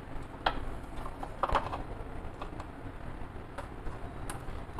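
Scattered light clicks and taps of small metal gas-stove parts being handled and fitted back together, the clearest about half a second and a second and a half in.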